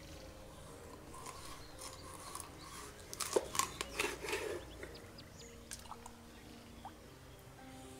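A large curved cleaver cutting through a fish's neck on a wooden board, with a quick run of cutting strokes and knocks about three to four and a half seconds in as the head is severed.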